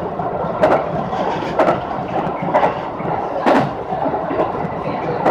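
Local electric train running on the track, heard from inside the front of the car: a steady running noise with sharp wheel clacks over the rail joints about once a second.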